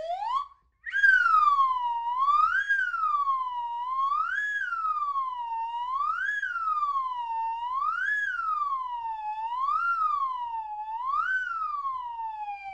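A siren wailing. One tone rises and falls evenly, about once every two seconds, without a break.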